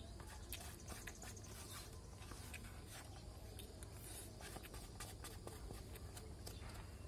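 Small plastic spoon scraping and clicking against a styrofoam takeaway food box as food is scooped out, a scatter of short scratchy ticks over a low steady rumble.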